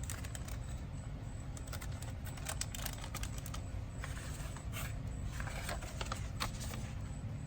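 Scattered light clicks and taps from small parts of a valve seal kit being handled, over a steady low hum.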